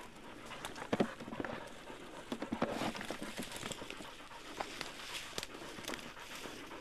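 Pig-hunting dog panting, with rustling of ferns and undergrowth and irregular clicks and snaps, the sharpest about a second in.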